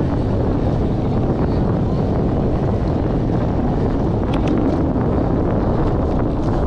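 Wind buffeting a moving GoPro's microphone: a steady low rumble of noise, with a few faint short high ticks about four seconds in.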